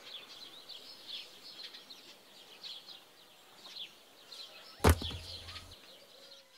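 Small birds chirping busily throughout. About five seconds in, a thrown rubber flip-flop lands with a single sharp thud.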